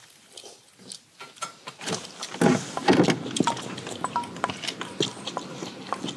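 Chopsticks and spoons clicking against stainless-steel bowls, some knocks ringing as short metallic pings, with louder eating and slurping noises about two and a half seconds in.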